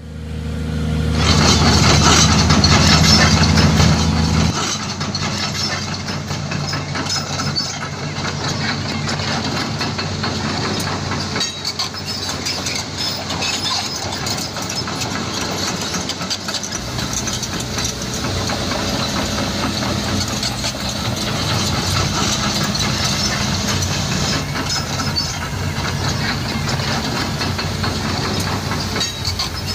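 Truck engine running steadily, with a deep hum for the first few seconds that drops back about four seconds in and shifts again a little past halfway.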